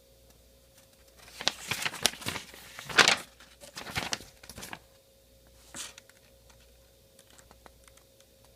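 Paper rustling and crinkling as instruction sheets are handled: a run of short rustles from about a second in to about five seconds, then one more shortly after.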